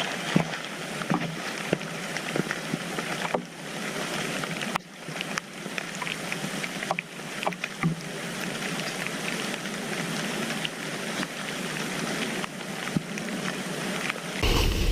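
Steady rustling and crinkling of a nylon rain-jacket shell being stuffed into a backpack, with many small clicks and knocks from the fabric and pack.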